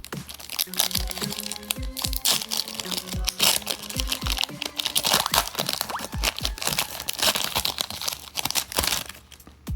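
Trading-card pack wrappers being torn open and crinkled by hand, a dense run of crackling that stops near the end, over background electronic music with a heavy beat.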